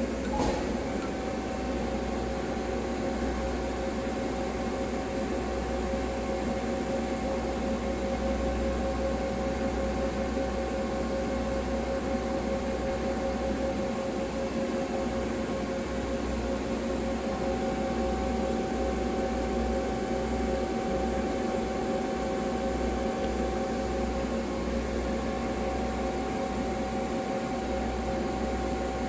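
CNC lathe powered up and running: a steady machine hum with fan and pump noise and two steady whining tones, one of which fades for a few seconds about halfway through. A short click sounds right at the start.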